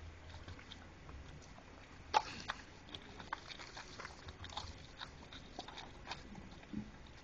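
Faint, scattered clicks and knocks, irregularly spaced, the loudest about two seconds in.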